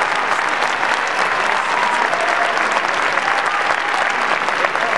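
Arena crowd applauding steadily.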